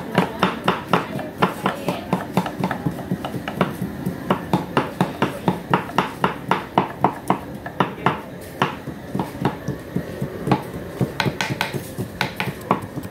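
Two large knives chopping red onions on thick wooden chopping boards: quick, uneven knocks of blade on wood, several a second, the two choppers overlapping.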